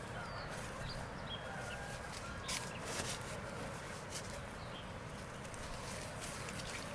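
Steady outdoor background noise with faint, short bird chirps scattered through it and two sharp clicks about two and a half and three seconds in.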